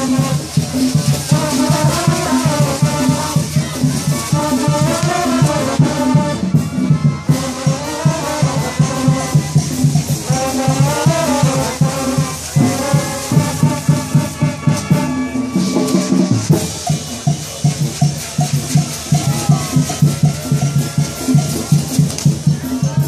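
Brass band music with drums and rattling percussion: a steady beat under a wavering melody.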